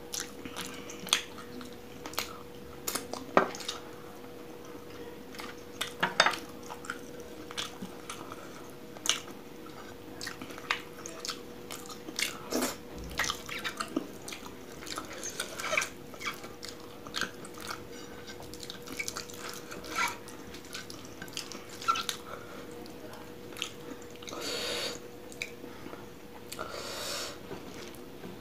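Close-miked wet eating sounds: a bare hand squishing rice into chicken curry gravy on a plate, with chewing and mouth clicks as many sharp wet snaps, and two longer breathy noises near the end. A faint steady hum runs underneath.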